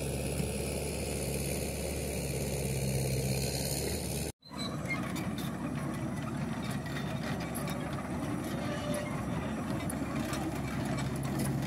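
An engine running steadily at a low hum, with a brief total dropout about four seconds in before it carries on.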